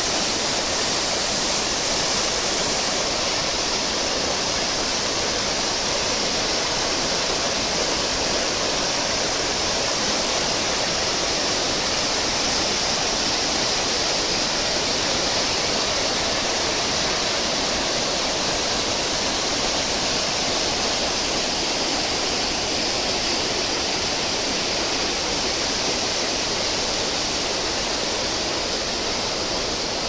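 The Kuk Karauk waterfall in full flow, water pouring and crashing over rock ledges. It makes a steady, dense rush with no breaks.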